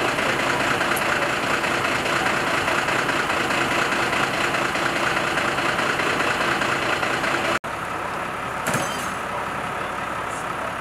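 Steyr fire engine's diesel engine idling steadily. After an abrupt cut it becomes quieter, with a single short knock a little later.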